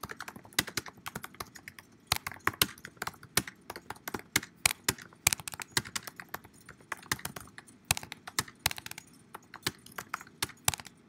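Typing on a computer keyboard: a quick, irregular run of key clicks as a sentence is typed out.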